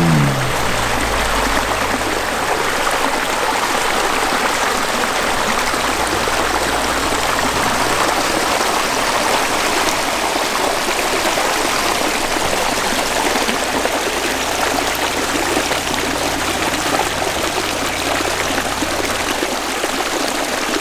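Shallow rocky creek running steadily, water trickling and splashing over small stone ledges and low cascades.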